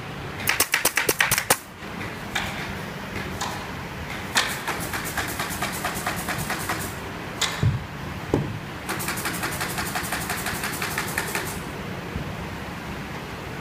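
Furniture-factory workshop machinery: runs of rapid mechanical clicking, about ten a second, come three times over a steady machine hum, with two dull thuds a little past the middle.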